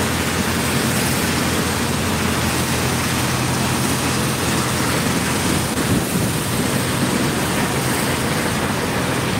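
Steady rushing noise of shipyard machinery in a dry dock, with a low even hum underneath that does not let up.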